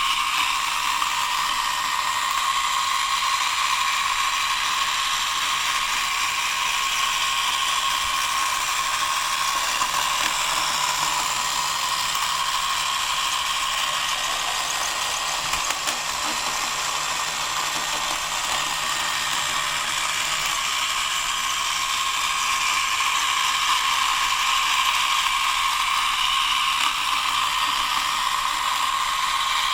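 Small robot vacuum cleaner running: a steady high whir of its small motor.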